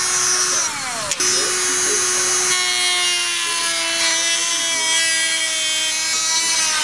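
Handheld rotary tool with a cutoff wheel whining at high speed as it cuts through a plastic motorcycle body panel. About a second in its pitch sags and there is a sharp click, then it comes back up to speed and runs steadily.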